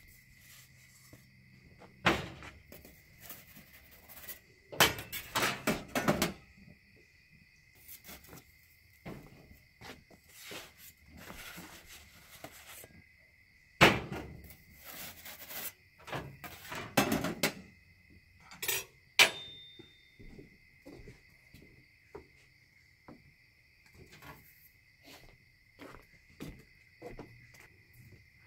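Aluminium pizza peel and a metal turning peel scraping and clattering against each other in several short bursts, over a steady trill of insects.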